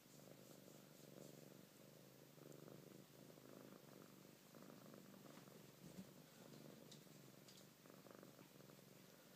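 Siamese cat purring softly and steadily as it is stroked, swelling and easing about once a second.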